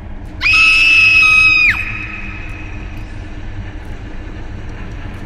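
A person's high-pitched scream, held on one pitch for about a second and a half, starting about half a second in and dropping away at the end.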